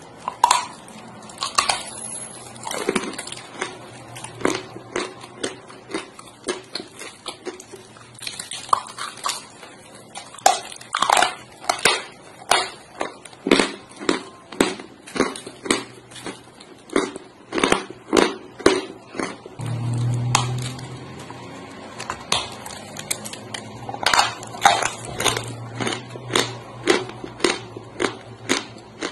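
A lump of white Turkestan clay being bitten and chewed: repeated sharp, dry crunches, about two a second, as pieces snap off and are ground between the teeth.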